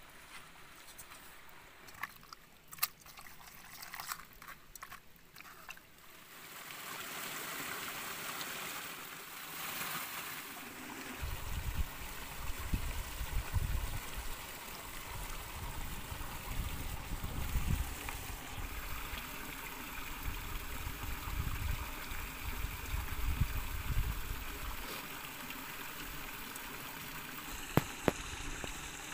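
Wet squelching and clicks of hands kneading pork intestines in chili marinade in a metal pot, then a stream trickling over rocks. A low rumble comes and goes through the middle.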